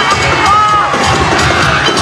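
Crowd of students cheering and screaming over loud background music with a steady beat.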